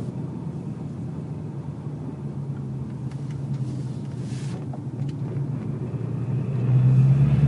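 Ford car running, a steady low engine sound that grows louder near the end; this is the noise that appeared after a clutch replacement.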